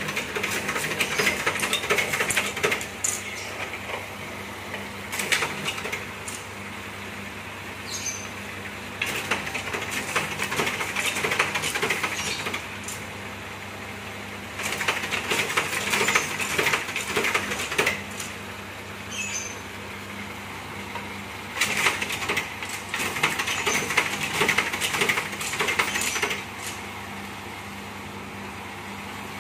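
A bamboo satay-skewer machine's motor hums steadily. Five spells of several seconds each of clattering and crackling come as bamboo strips are fed through its rollers to be split and shaved into skewer sticks.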